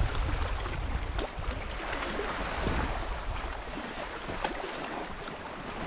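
Small waves lapping and washing at the water's edge over sand and rocks, a steady wash with many small splashes. Wind buffets the microphone in about the first second.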